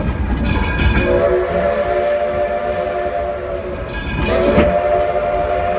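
Steam locomotive whistle blowing two long blasts, each a chord of several steady tones, the second starting about four seconds in, over the low rumble of the moving train.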